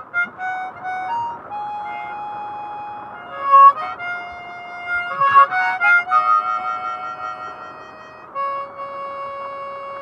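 Old Hohner chromatic harmonica played slowly, a simple melody of short notes and long held single notes, with the slide pushed in so that the other set of reeds sounds. The reeds sound good and full.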